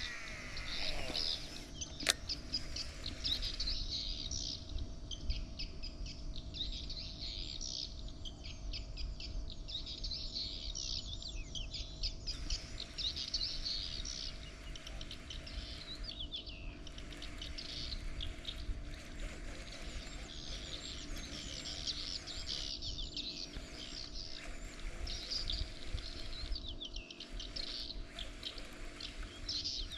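Birds chirping and calling continuously in a busy chorus of quick, varied high notes, with a low rumble underneath and a single sharp click about two seconds in.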